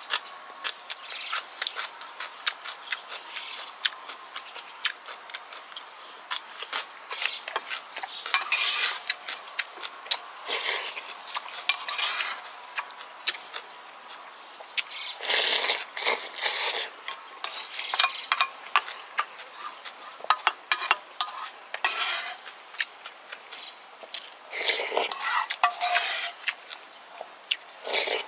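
Close-up eating sounds: chopsticks and a spoon clicking and scraping against a pan and dishes, many sharp taps throughout, mixed with chewing and a few short stretches of slurping.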